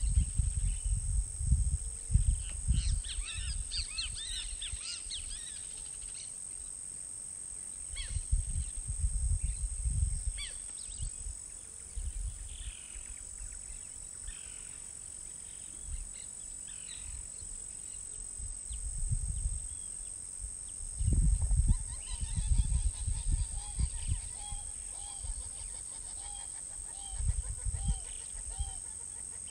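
Outdoor nature soundscape: wild birds calling in scattered chirps, with a quick repeated chirping series near the end, over a steady high insect drone. Low gusts of wind rumble on the microphone several times.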